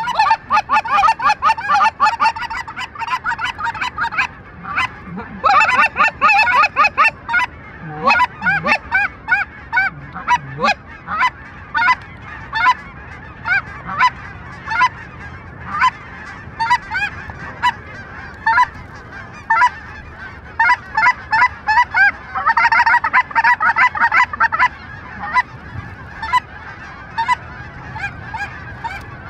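A large flock of geese calling overhead: many short honks overlapping. The calling thickens into a dense chorus near the start, again a few seconds in and once more a little after twenty seconds, and is sparser, several calls a second, in between.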